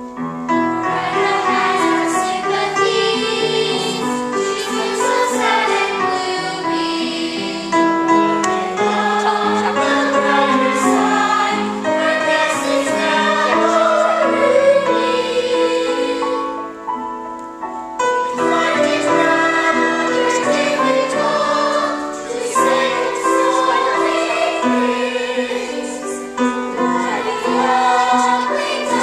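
Musical-theatre cast singing an elegy together as a choir, with accompaniment. The singing thins briefly about two-thirds of the way through, then the chorus comes back in.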